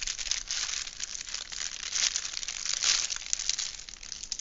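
Crunchy crinkling of plastic packaging as the small bags of diamond painting drills are handled. The crinkling is irregular and is loudest about three seconds in.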